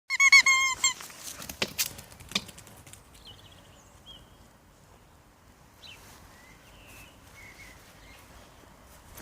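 Squeaky dog toy squeezed rapidly: about seven quick high squeaks, then a few sharp knocks, then only faint high chirps.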